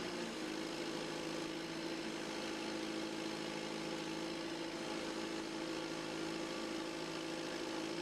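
John Deere 510D backhoe loader's turbocharged diesel engine running at a steady speed while it works the front loader bucket, tipping it forward to dump fill.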